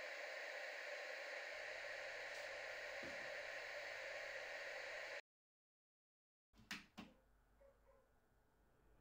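Television static hissing steadily, then cutting off suddenly about five seconds in. After a second of silence come two sharp knocks in quick succession.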